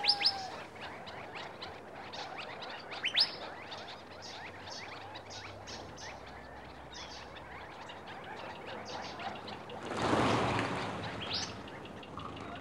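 Small desert birds chirping, with many short chirps and a few sharp rising whistled calls: one right at the start, one about three seconds in and one near the end. A brief rushing noise swells and fades about ten seconds in.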